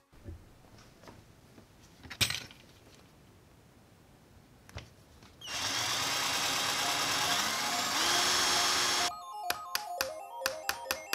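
Electric drill boring through a thin aluminium plate for about three and a half seconds, its pitch rising partway through. Before it come a few knocks, one sharp knock about two seconds in. Music starts near the end.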